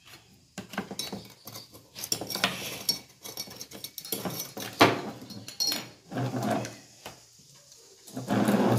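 Plastic funnel and beakers being handled and set into a metal filter stand on a wooden table: irregular knocks and clatter, with one sharp knock about five seconds in.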